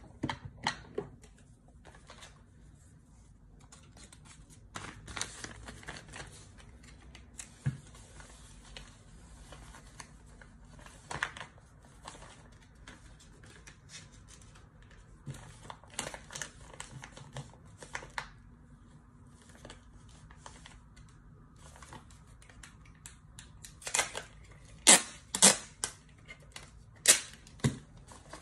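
Paper and craft supplies being handled: rustling and scattered sharp clicks and taps, loudest in a cluster of clicks near the end.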